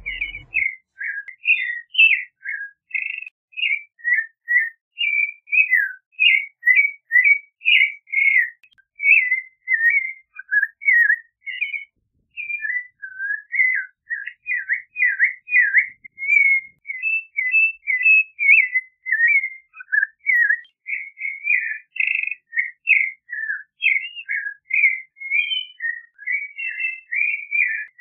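Clay-colored thrush singing: a long run of short, varied whistled phrases with almost no breaks, pausing briefly about twelve seconds in.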